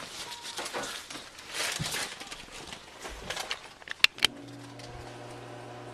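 Shuffling and handling knocks, then two sharp clicks about four seconds in, after which an electric garage door opener starts a steady hum. The motor is humming but the door doesn't move: the opener is malfunctioning.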